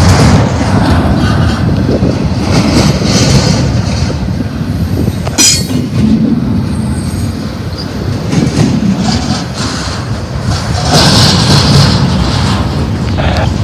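Double-stack intermodal well cars rolling past close by: a loud, steady rumble and clatter of steel wheels on rail. About five and a half seconds in, a brief high-pitched wheel squeal cuts through.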